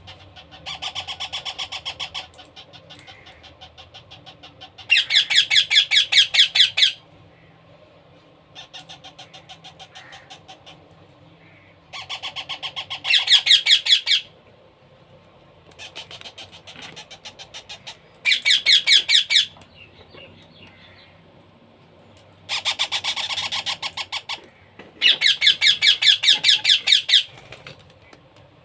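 Baby parrots giving begging calls while being hand-fed: bouts of fast, rhythmic, high-pitched pulsing calls, each a second or two long, repeating every few seconds, some louder than others.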